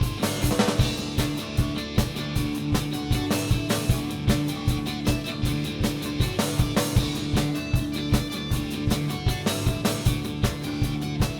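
Live rock band playing an instrumental passage: steady drum kit beat with bass and guitar, no vocals.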